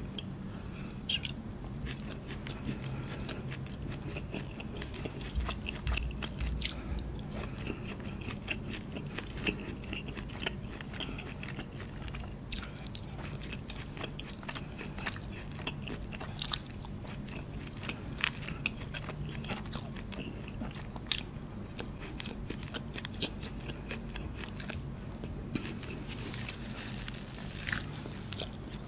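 Close-miked eating sounds of noodles eaten by hand: chewing and biting, with many short wet clicks and smacks, over a low steady hum.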